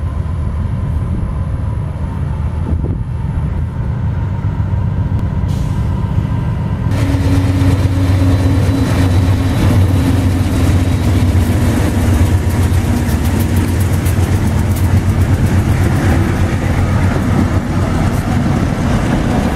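Diesel freight locomotives rumbling low and steady. About seven seconds in, the noise of a train passing close by on the rails joins in and the sound gets louder.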